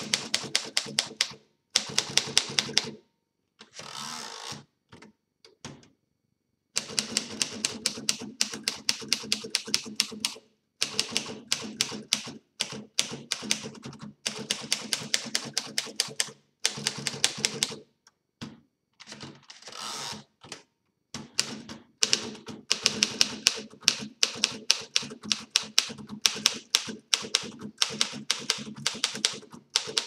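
A fully refurbished 1931 Royal Model P manual portable typewriter being typed on: runs of sharp typebar strikes, about five a second, broken by short pauses, with a longer sliding sound twice between runs.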